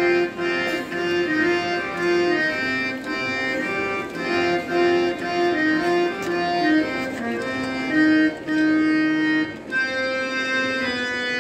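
Instrumental introduction played on a keyboard instrument: a melody of short held notes, each changing every fraction of a second, before the children start singing.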